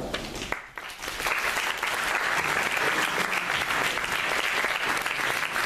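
Audience applauding: a dense, steady patter of many hands clapping that swells in about a second in.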